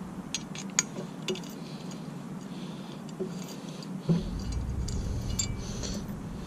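Scattered light metallic clicks and clinks of a hand Torx key working a bolt loose on the steel bumper bracket. A low rumble comes in about four seconds in.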